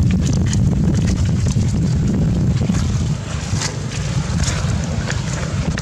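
Low, steady wind rumble buffeting the microphone, with a few faint ticks above it.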